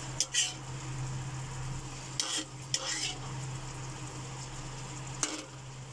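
Metal spatula scraping and stirring pork in thick shrimp-paste sauce in a pan, a few sharp scrapes against the pan over a faint steady sizzle of the simmering, oily sauce, with a constant low hum underneath.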